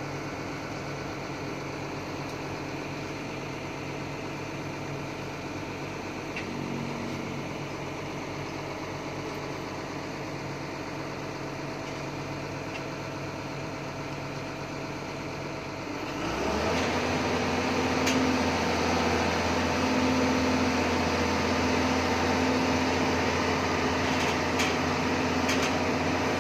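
Doosan DX140AF excavator's diesel engine running steadily at a low idle, then revving up about two-thirds of the way through and holding at a higher, louder pitch as the boom and grapple are worked.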